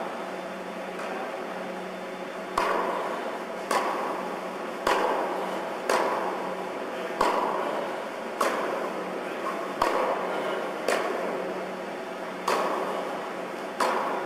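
Tennis ball being hit with a racket in a rally: about ten sharp pops, roughly a second apart, each echoing in a large indoor tennis hall, over a steady low hum.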